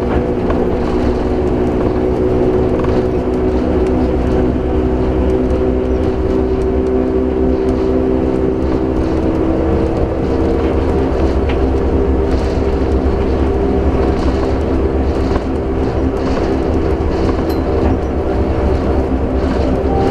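Kuala Lumpur Monorail train running along its elevated guideway, heard from inside the front cab: a steady low rumble from the rubber-tyred running gear with a steady whine over it that fades about halfway through.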